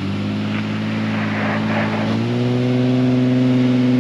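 Honda Ridgeline's V6 engine pulling at low speed under load while crawling over rough ground, the revs stepping up a little about two seconds in and then holding steady.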